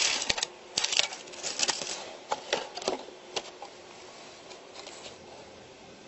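A sheet of brown paper crinkling and rustling as gloved hands press it around a metal cockpit frame: a quick run of sharp crackles over the first three seconds or so, then only a faint hiss.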